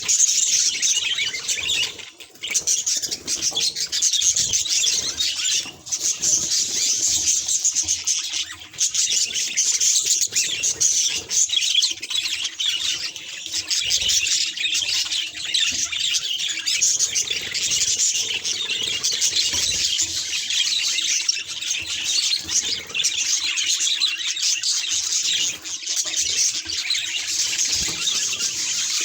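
Budgerigars chattering continuously, a dense high-pitched twittering with short breaks about two, six and nine seconds in.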